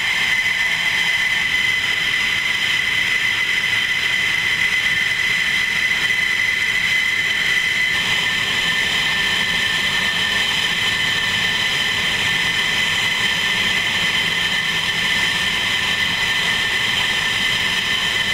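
F-16 fighter jet engines idling together: a steady high turbine whine over a rushing hiss, with a slight shift in tone about eight seconds in.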